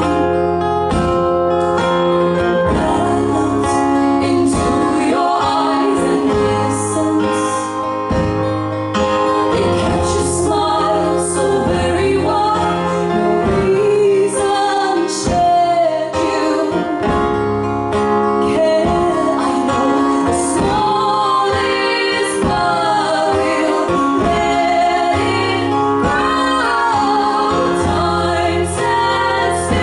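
Live performance of a song: female voices singing a melody over sustained instrumental chords with a regular strummed beat.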